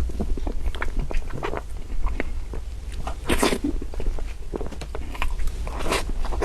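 Close-miked chewing of soft cream cake: a continuous run of small soft, chewy mouth clicks, with two louder bites about three and a half and six seconds in.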